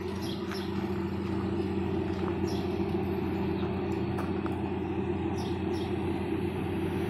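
Diesel engine idling with a steady, even hum, while birds chirp faintly and now and then over it.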